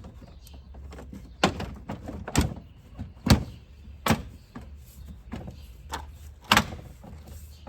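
Plastic front bumper cover of a Honda Accord being pushed and knocked into place by hand, seating its clips: five loud hollow thumps, irregularly spaced, with lighter knocks between them.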